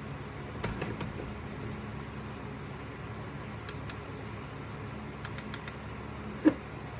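Small clicks from handling a Ryobi 18-volt cordless crown stapler that will not fire: three in quick succession about a second in, two more a few seconds later, then four, followed by one louder thump near the end. A faint steady hum sits underneath.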